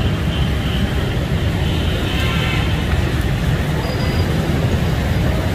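Steady low rumble of busy street traffic, with faint voices in the background.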